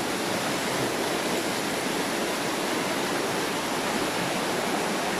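Fast-flowing mountain stream rushing past: a steady, dense roar of whitewater.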